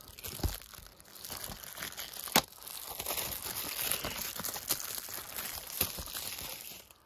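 Plastic shrink wrap being peeled and crumpled off a DVD case, a steady crinkling with a few sharp clicks, the loudest about two and a half seconds in.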